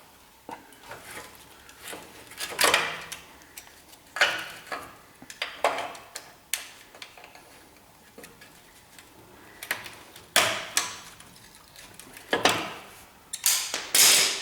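Hand-tool work on a car's steel chassis: irregular metal scrapes and knocks with short pauses between them, as a seized bolt is worked free.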